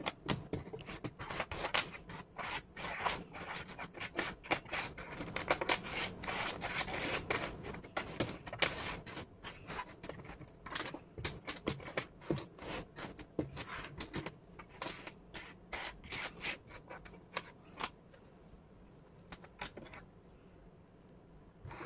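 Wooden jigsaw puzzle pieces clicking and scraping against one another and the tabletop as hands rake through and sort them. The dense clatter thins to scattered clicks for the last few seconds.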